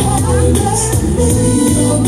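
Loud music with a steady bass line, a sung vocal and high shaker-like percussion.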